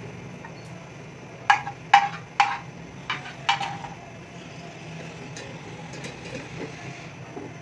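Metal cookware clanking: five or six sharp clanks in quick succession, starting about a second and a half in and over within about two seconds, over a steady low hum.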